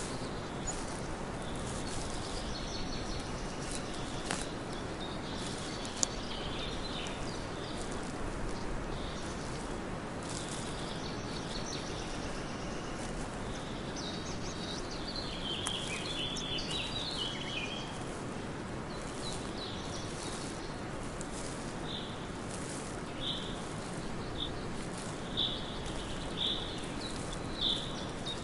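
Forest ambience: a steady background rush with birds chirping now and then, and footsteps on the trail. From about two-thirds of the way in, one bird repeats a short chirp roughly once a second.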